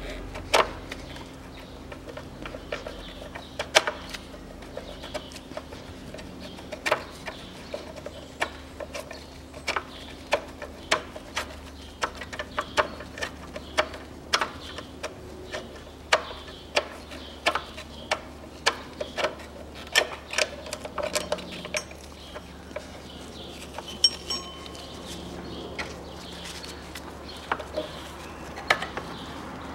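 Irregular sharp metallic clicks and taps from hand work with tools on the engine front, around the power-steering pump pulley, over a faint steady hum.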